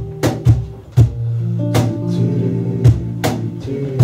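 Live acoustic band playing a short instrumental passage between sung lines: acoustic guitar and electric bass holding low notes, with sharp percussion hits.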